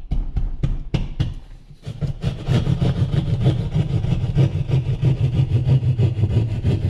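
Drywall jab saw cutting through drywall: a few sharp knocks in the first two seconds as the point is jabbed in, then quick, steady rasping saw strokes.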